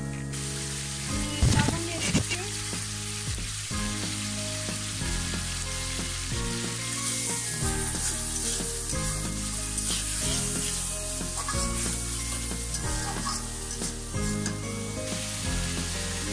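Raw shrimp sizzling as they fry in hot oil in a steel wok, stirred with a metal spatula that scrapes and knocks against the pan. A few louder knocks come about a second and a half to two seconds in.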